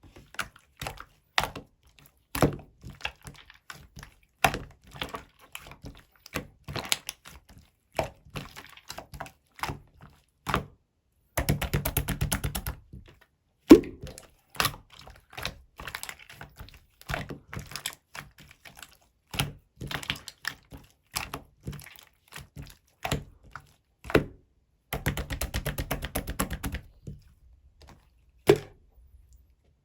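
Irregular sharp clicks and taps, a few per second, with two stretches of quick, even rattling clicks lasting about a second and a half each, one near the middle and one near the end.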